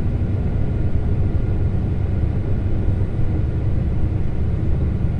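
Steady low rumble of a truck's diesel engine and tyres on the road, heard from inside the cab while driving along at an even speed.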